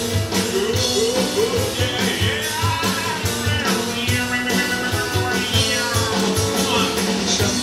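A rock-and-roll style song with a singer, guitar and a steady drum beat, played through Genesis Naptune GT65.2 component speakers on their original passive crossover with no EQ.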